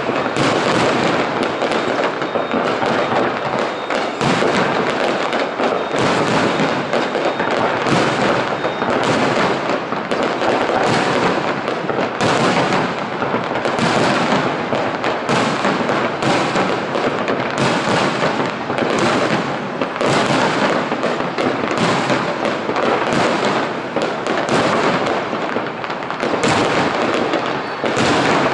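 Aerial fireworks display: a loud, dense barrage of shell bursts, one bang on top of the next with no pause.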